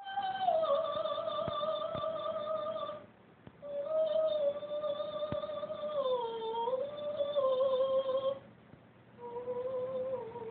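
A woman singing long held high notes in three phrases, each sliding or stepping down in pitch, with short pauses for breath between them.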